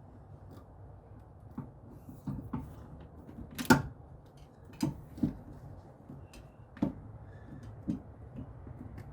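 Irregular clicks and knocks of hand tools and parts being handled during engine work. The sharpest knock comes just before four seconds in, and a few lighter ones follow.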